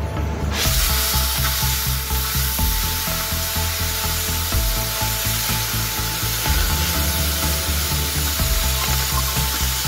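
Oxy-acetylene cutting torch hissing steadily as its oxygen jet cuts through steel plate, starting about half a second in. Background music with a bass line plays underneath.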